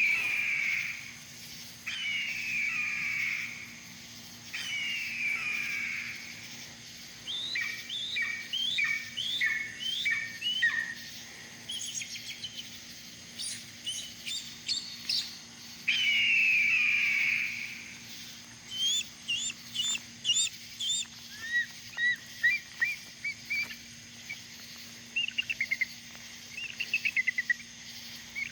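A bird calling in varied phrases: long, falling calls about a second and a half each, then rapid runs of short notes and quick trills, repeated with short pauses.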